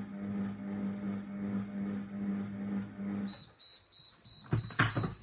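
Monsieur Cuisine cooking food processor's mixing motor humming steadily on low speed while heating, stopping about three seconds in. Then a quick run of high beeps, the machine's end-of-program signal, with a couple of knocks as the lid is handled.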